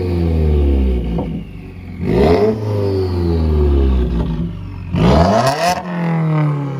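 A 2018 Subaru WRX's turbocharged 2.0-litre flat-four is revved twice, about two seconds in and again near five seconds, through a catless J-pipe and an AEM intake. Each time the revs rise sharply and fall back.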